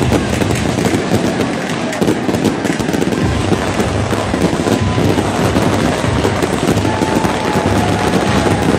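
Stage pyrotechnics crackling and banging over the steady roar of a large stadium crowd, loud and dense throughout.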